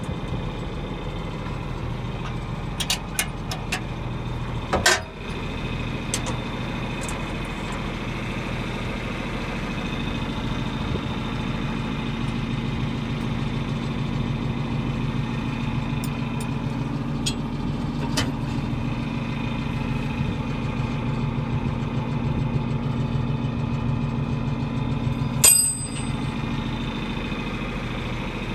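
An engine running steadily at a constant speed, with a few scattered clicks and one sharp knock about 25 seconds in.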